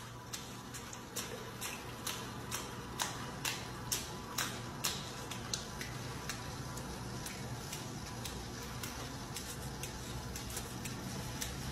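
A giant anteater splashing about in a tub of water, with sharp splashes and slaps about twice a second at first, then fewer, over a steady low hum.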